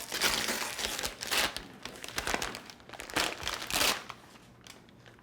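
Gift wrapping paper being torn and crumpled as a present is unwrapped, in irregular rustling bursts that die away after about four seconds.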